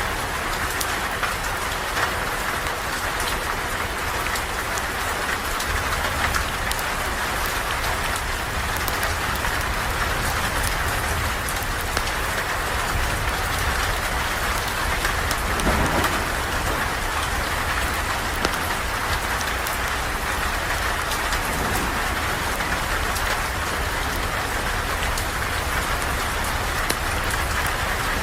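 Steady rain falling, with scattered sharp crackles and pops from a campfire; the rain swells briefly about halfway through.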